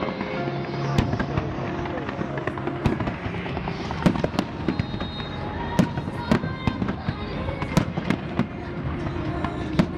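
Fireworks going off: irregular sharp bangs and crackles over a continuous noisy din, the loudest bangs about four and six seconds in.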